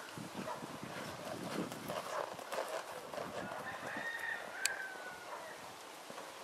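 Hoofbeats of a horse cantering on arena sand, soft irregular strokes. About four seconds in, a rooster crows once, a drawn-out call lasting over a second, with a single sharp click partway through it.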